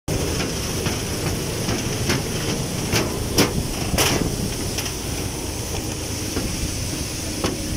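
Footsteps knocking on an aircraft's boarding stairs: a handful of sharp knocks about two to four seconds in and one more near the end. Under them runs a steady hiss of airport apron noise.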